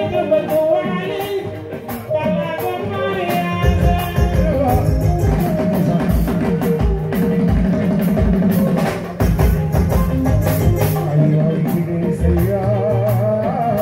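Live band music with a male singer, drum kit and electric guitars. The bass and low drums drop out for the first few seconds, then the full band comes back in about three and a half seconds in.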